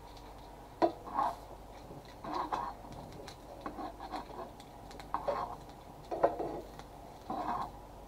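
Kitchen tongs clicking and scraping against a JML copper stone frying pan as pieces of Quorn are turned in the dry, unoiled pan. There is a sharp click about a second in and another about six seconds in, with short scrapes every second or so.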